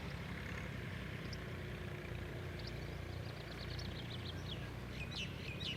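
Steady low hum of room tone. About halfway through, a small bird starts a run of rapid, high, short chirps, several a second.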